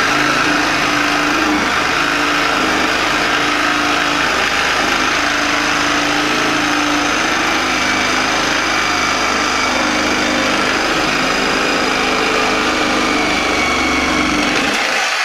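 Corded Sawzall reciprocating saw cutting through the subfloor along a wall, blade held flat and shallow. It runs steadily at full speed and stops just before the end.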